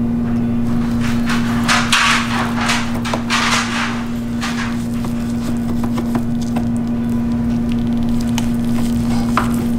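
Knife carving a roast goose in a foil pan: a run of scraping, sawing strokes through the skin and meat in the first few seconds, then a few light ticks. A loud, steady low hum lies under it all.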